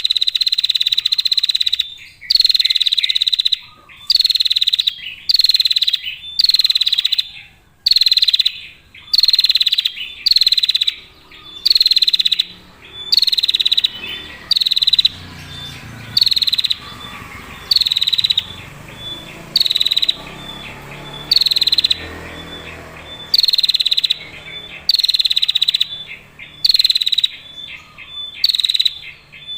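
Female prinia giving long, clear, high-pitched rattling trills, each about a second long, repeated over and over with short gaps.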